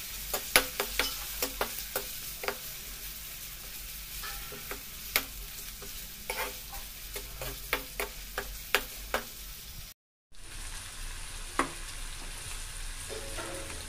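Chopped onions sizzling steadily in hot oil in a steel kadai, stirred with a slotted steel spatula that clicks and scrapes against the pan. The clicks come often for the first nine seconds or so, the sound cuts out briefly about ten seconds in, and then the sizzle carries on with only a few clicks.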